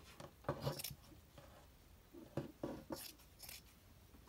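Faint sounds of fabric scissors and cotton T-shirt jersey being handled on a table: a few short, sharp snips and rustles, one about half a second in and a cluster between about two and three and a half seconds in.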